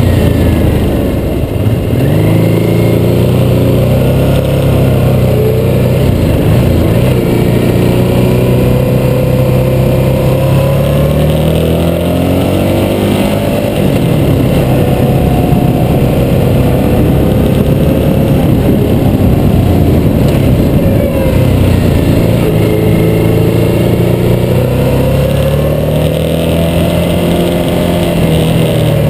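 Harley-Davidson V-twin motorcycle engine running under load while riding uphill. Its pitch rises and falls several times as the rider accelerates, shifts and eases off through the bends.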